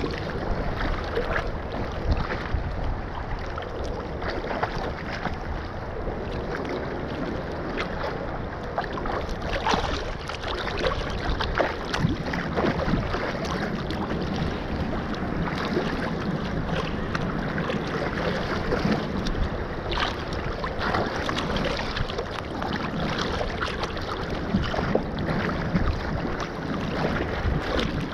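Choppy seawater sloshing and lapping right at the microphone, with wind on the microphone and frequent small splashes and knocks as a net is pulled through the water.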